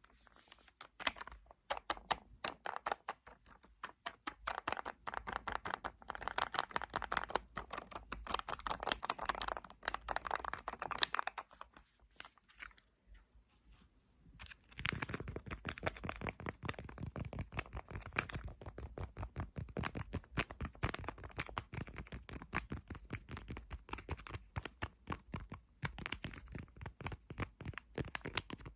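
Rapid ASMR tapping on objects, many quick taps a second, pausing for about three seconds near the middle; after the pause the taps land with a heavier, deeper knock.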